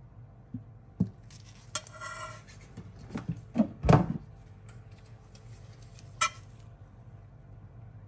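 Metal spoon knocking and clinking against a stainless steel mixing bowl: a few sharp clinks, one leaving the bowl ringing briefly about two seconds in, and a heavier knock, the loudest, about four seconds in as the spoon is laid down in the bowl.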